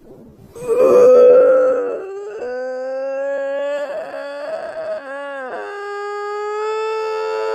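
A long, drawn-out howl-like vocal sound in about three held stretches. It is loudest at the start, rises slowly in pitch in the middle, dips, then holds a steady lower note.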